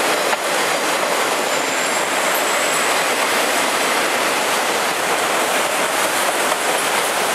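Freight train cars rolling past close by at speed: a steady rush of steel wheels on rail.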